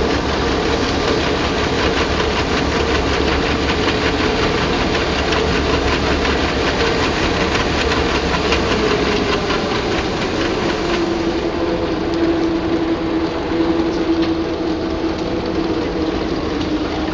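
Combine harvester running close by while its unloading auger pours barley into a trailer: a steady mechanical din with the hiss of grain landing on the pile. About eleven seconds in, the machine's hum drops in pitch and the hiss thins.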